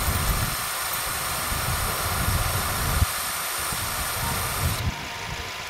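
Smittybilt 2781 5.6 CFM portable 12-volt air compressor running, pumping air through its hose into a truck tire with a pulsing low rumble and a steady hiss. The hiss cuts off suddenly about five seconds in, leaving the lower rumble.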